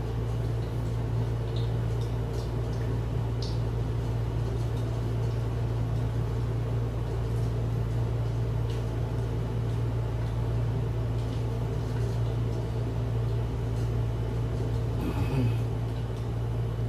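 A steady low mechanical hum, with a few faint soft taps and rustles of a hand dredging chicken pieces in flour.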